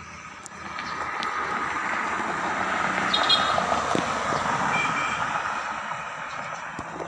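A vehicle passing by: a noisy rumble that grows louder from about a second in, peaks around the middle and fades away again toward the end.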